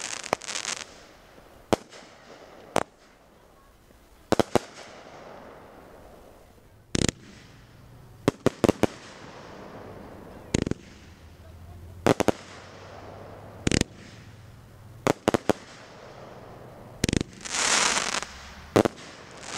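Consumer aerial fireworks cake firing: a string of sharp bangs as shots break overhead, irregularly spaced and sometimes in quick pairs, with a longer stretch of crackling near the start and again near the end.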